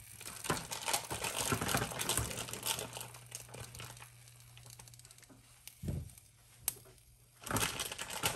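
Plastic food packaging crinkling and rustling in intermittent bursts as chicken sausage links are pulled out of it, with a soft thump about six seconds in.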